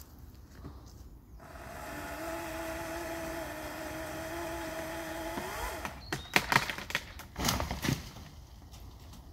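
Chainsaw running steadily in a cut for about four seconds, its pitch rising just before it stops as it comes free. It is followed by a burst of loud sharp cracks and knocks as the branch breaks away.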